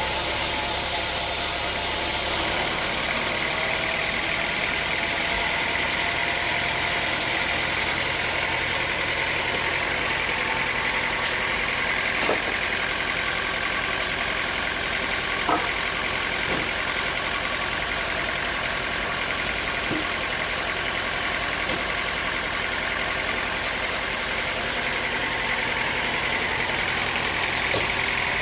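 Sawmill machinery running steadily, an engine-like noise with a high steady tone over it, and a few sharp knocks in the middle.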